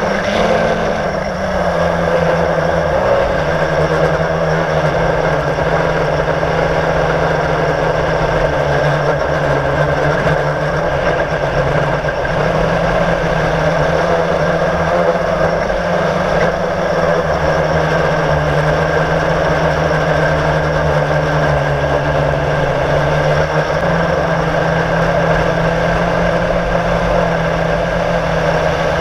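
Quadcopter's electric motors and propellers whirring steadily, heard close up from the camera mounted on the drone. The pitch dips slightly about a second in, then holds with small wavers as the drone manoeuvres.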